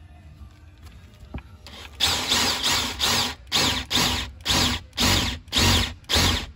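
DeWalt cordless drill boring a hole down through the carpeted cargo floor panel, run in short bursts about twice a second, starting about two seconds in.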